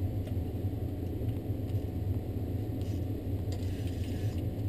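Steady low motor hum, even throughout.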